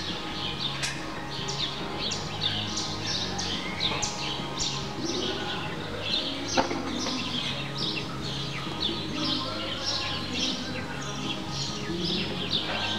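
Small birds chirping continuously, a quick overlapping string of short high falling chirps, several a second, over a steady low hum.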